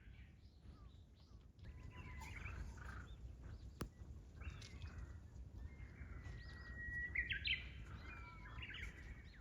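Birds calling and chirping, several short whistled notes at a time, over a faint low rumble of outdoor background noise; one sharp click about four seconds in.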